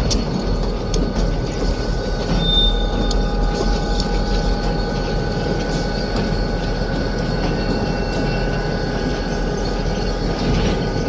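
Heavy loaded freight train rolling by: a steady rumble and rattle of the cars on the rails, with scattered clicks and a brief high wheel squeal about two and a half seconds in.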